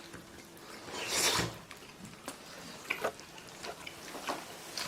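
Small clicks and taps of tableware during a meal, a handful of short sharp ticks spaced out over the last few seconds, with a brief rustling noise about a second in.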